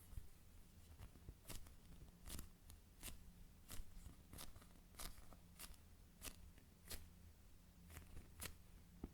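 A slow-rising foam squishy toy shaped like a bar of chocolate being handled, giving short, sharp soft clicks at an uneven pace of a little over one a second, over a faint low hum.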